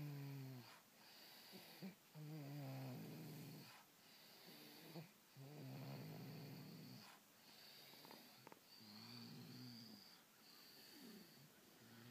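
Faint, slow, even snoring: a pitched drone on each breath, one about every three seconds.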